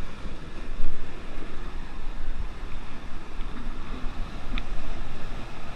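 Rushing water of river cascades pouring through rock channels, with wind buffeting the action camera's microphone in an uneven low rumble.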